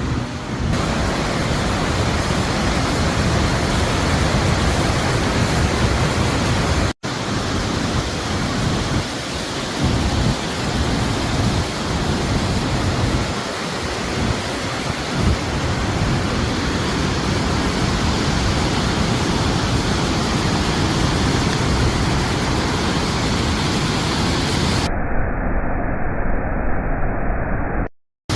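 Roar of the Paterson Great Falls of the Passaic River, a steady rushing noise of falling water. The sound cuts out for an instant about a quarter of the way in, and turns duller near the end.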